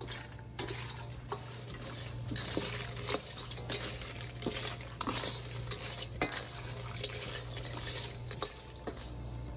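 Irregular clinks and clatters of dishes and utensils being handled, over a steady low hum.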